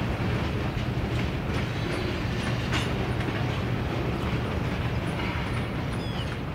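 Freight train rolling past, its last cars moving away: a steady low rumble of steel wheels on rail with a few light clicks.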